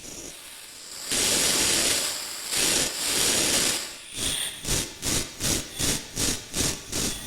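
Granular synthesizer patch playing noisy, hissing textures that swell in and hold, then break into a rhythmic pulsing of about three pulses a second from about four and a half seconds in.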